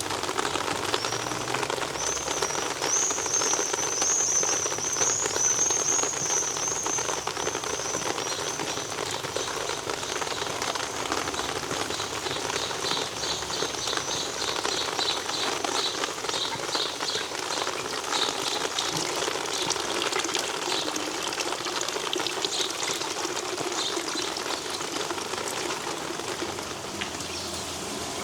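Steady rain falling, with a bird singing over it: a high wavering warble for the first third, then a long run of quick repeated chirps.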